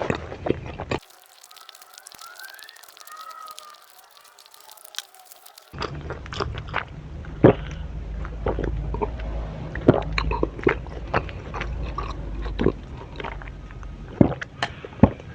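A person crunching and chewing food, with sharp crackling bites of raw vegetables. For a few seconds near the start the chewing gives way to a quieter passage with faint chirping glides, and then the crunching resumes.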